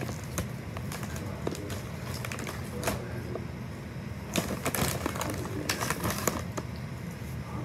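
Doritos Roulette chip bag crinkling as a hand rummages inside it for a chip: an irregular run of crackles and rustles, thickest about four and six seconds in.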